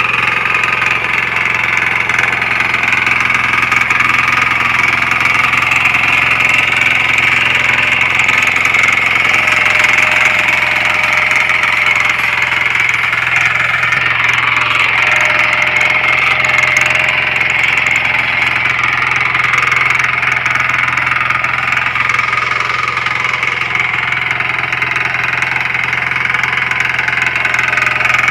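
Single-cylinder air-cooled diesel engine of a walk-behind power weeder running steadily under load as its rotary tines till weeds into the soil.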